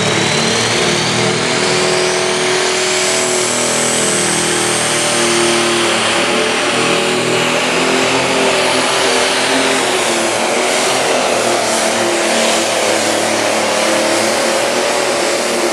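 Pro stock pulling tractor's turbocharged diesel engine running flat out under full load as it drags the weight-transfer sled, with a turbo whine climbing in pitch over the first few seconds.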